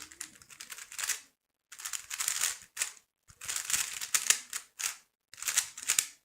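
3x3 speedcube turned fast by hand: rapid plastic clicking and clacking in bursts, broken by three short pauses.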